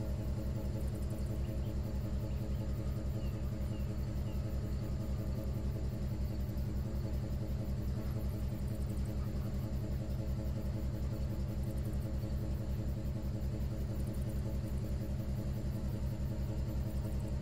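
River cruise ship's engine running steadily: a low, even, pulsing drone.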